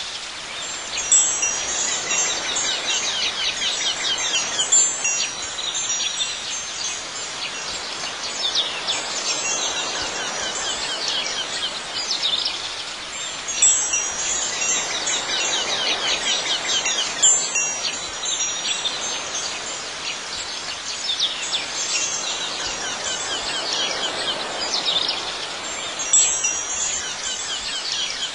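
High ringing chime tones sound out about five times, over a steady, dense background of rapid high-pitched chirping.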